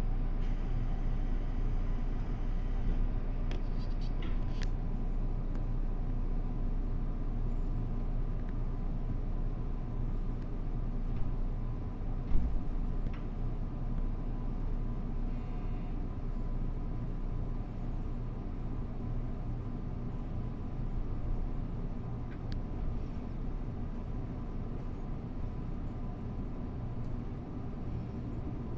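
Steady low hum and rumble inside a JR Kyushu 787 series electric train's motor car as it stands at the platform and then starts to pull away. A single sharp knock about twelve seconds in.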